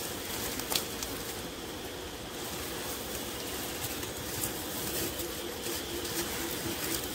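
Wild honey bees humming steadily around their nest in a rock crevice as incense smoke is blown into it, with one sharp tick about three-quarters of a second in.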